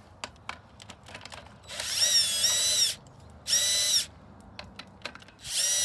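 Cordless drill with a socket bit spinning nuts off the bolts of a patio umbrella's hub: three short runs of the motor whine, the first about a second long, the second about half a second, and the third starting near the end. Light clicks come between the runs.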